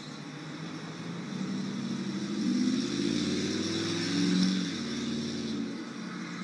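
A motor vehicle's engine running, its pitch wavering, growing louder to a peak a little past the middle and fading near the end.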